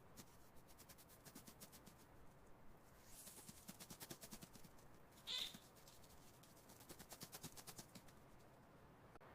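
Faint runs of rapid tiny ticks and scratches, like a mouse's claws scurrying, in three spells. A single short high-pitched squeak comes about five seconds in.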